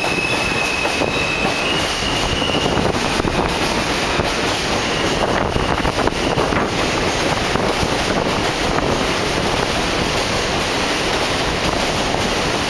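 R160A subway train pulling out of the station and passing along the platform: a steady rumble of steel wheels on rail with clacks over the rail joints. A thin high whine sounds for the first few seconds and again briefly midway.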